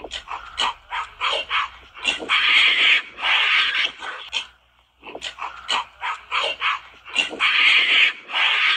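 Animal barks and screeching calls: a run of short calls builds into a longer, louder outburst, dies away briefly about halfway, then repeats the same pattern.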